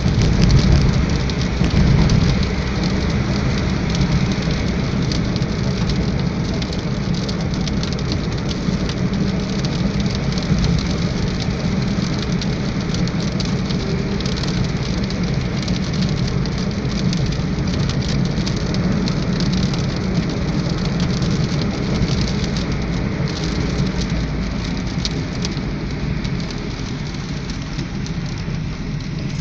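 Heavy rain drumming on a moving car, a dense patter of drops over a steady low rumble of road and engine.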